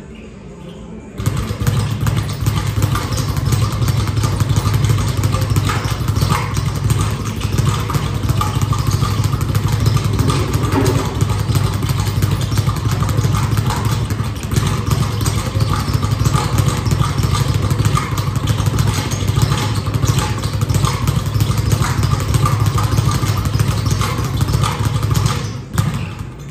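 An engine running steadily, starting abruptly about a second in and cutting off shortly before the end.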